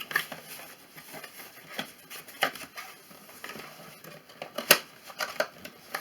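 Cardboard box and packaging being handled and pried open by hand: scattered rustles and clicks, with sharp snaps about two and a half seconds in and, loudest, near five seconds in.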